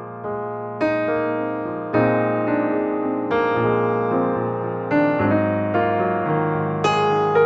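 Background piano music: slow, gentle chords struck about once a second, each fading before the next.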